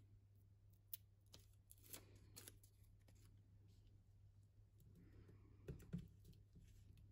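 Faint paper-craft handling: small crackles and clicks as a paper sticker is peeled from its backing, then a couple of soft thumps as it is pressed onto a kraft paper envelope, near the end.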